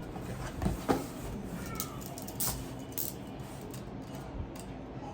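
A few light clicks and knocks from handling over a steady low hum, typical of a drone box and its packaging being handled.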